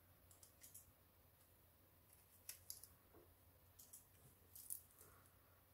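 Faint, scattered small clicks and paper pops as a pointed poking tool pushes the tiny holes out of die-cut glitter cardstock buttons.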